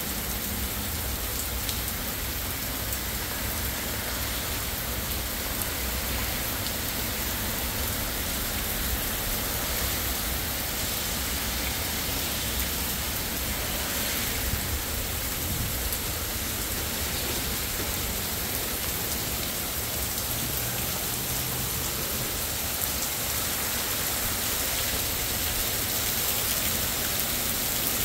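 Heavy rain pouring steadily onto a gravel driveway and street, an even hiss of rainfall.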